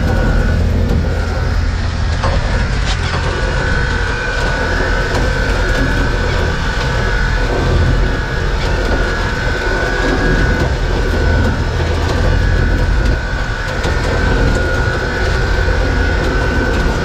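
Boat engine running under a trawl winch hauling in the trawl cables on its drums: a low rumble with a steady high whine.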